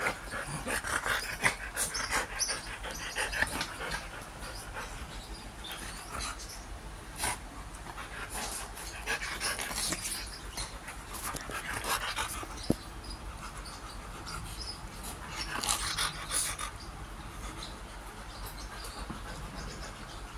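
Dogs panting close up, a Siberian Husky and a Pomeranian at play, the breaths coming in irregular spells with quieter gaps. A single sharp click about two-thirds of the way through.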